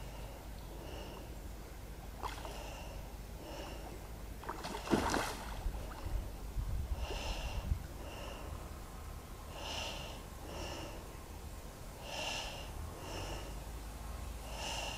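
Heavy breathing of an angler playing a hooked carp: steady in-and-out breaths, a pair about every two and a half seconds. One louder short noise comes about five seconds in.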